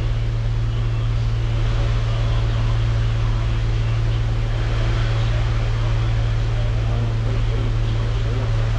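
A steady low hum that does not change, with an even hiss above it.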